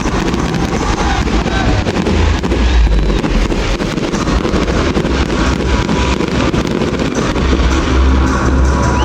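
Aerial fireworks going off in a dense barrage: constant crackling and popping over heavy low booms, the booms strongest about three seconds in and again near the end.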